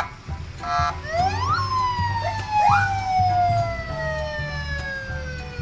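Police car siren: a few quick rising whoops, then a long wail that falls slowly in pitch.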